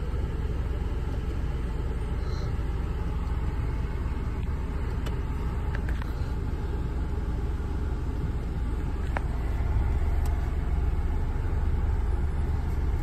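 Steady low rumble of a Moskvich car running, heard from inside the cabin, rising slightly about ten seconds in, with a few faint clicks.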